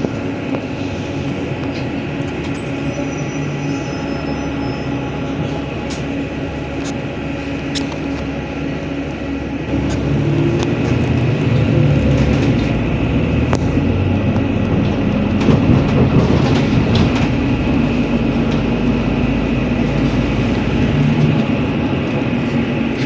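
Inside a NefAZ-5299 city bus on the move: steady engine and drivetrain noise over road rumble. The engine grows louder about ten seconds in.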